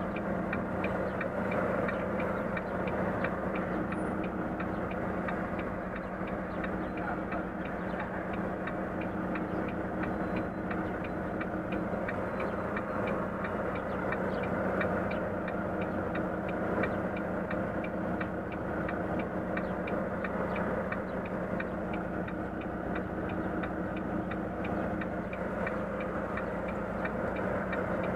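Volvo FM truck's diesel engine running at low speed, heard from inside the cab as a steady hum, with a steady, regular ticking a few times a second over it.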